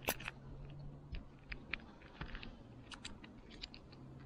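Light, irregular clicks and taps of a small screwdriver and metal parts against a partly disassembled Daiwa Goldcast 508RL spincast reel, with one sharper click at the start.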